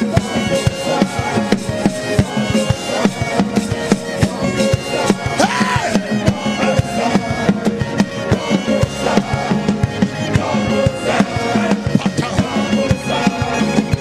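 Worship band playing an instrumental passage: busy drums with keyboard chords, at a steady full level, with a short swelling sound about five seconds in.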